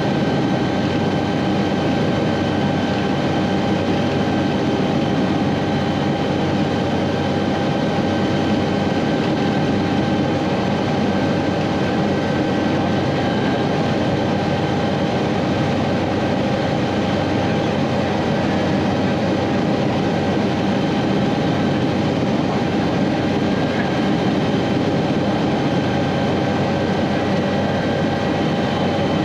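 Aérospatiale SA315B Lama helicopter in cruise flight, heard from inside the cockpit: its Turbomeca Artouste turbine and main rotor make a loud, steady drone with a few held whining tones over the rush of rotor and air noise.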